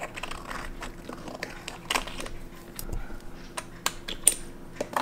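A stainless steel watch case and link bracelet being handled, with scattered small metallic clicks and taps, the sharpest about four seconds in.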